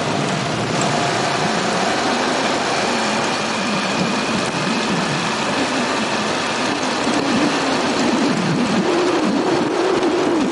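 Motorbike engine running as the bike rides along, mixed with steady wind and road noise. The engine note wavers and grows a little stronger near the end.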